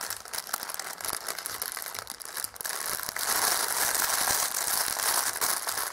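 Thin clear plastic bag around a plush toy crinkling as it is handled and turned over, louder from about three seconds in.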